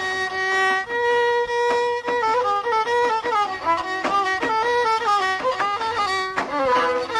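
Violin playing an ornamented melody with sliding notes and regular short accents, in the style of Middle Atlas Amazigh music.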